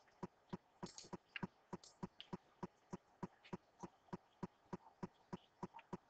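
Faint, evenly spaced clicking, about three clicks a second.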